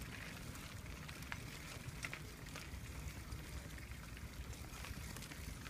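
Faint crackle of wheels rolling over cracked, gritty asphalt, under a steady low rumble, with a few small clicks.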